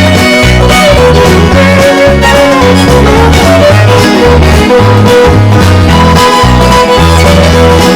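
Upbeat instrumental music with a bouncing bass line, plucked guitar and fiddle, starting suddenly just before and playing at full level.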